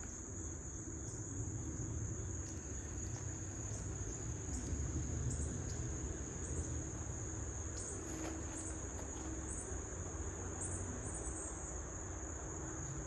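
Steady high-pitched chorus of insects such as crickets, over a low rumble, with a few faint clicks.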